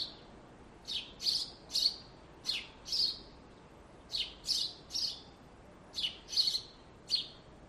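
Songbirds chirping: four clusters of two or three short, high chirps, with a faint steady hiss between them.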